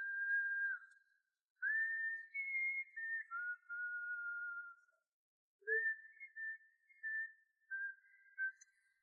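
A whistled tune: one clear, high tone stepping between held notes in three phrases, with short pauses about a second in and about five seconds in.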